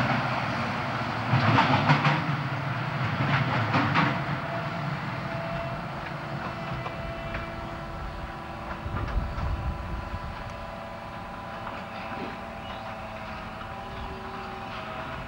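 Train passing: locomotive and wagons rumbling, with wheels knocking on the rails. Loudest over the first few seconds, then growing fainter while a few steady tones hang on.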